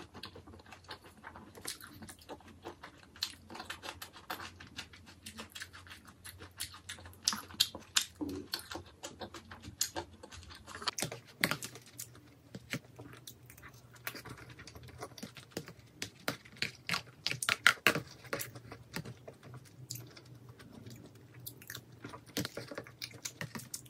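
Close-miked chewing of jjajangmyeon (black bean sauce noodles), with irregular clicks of a metal spoon scraping sauce from a bowl.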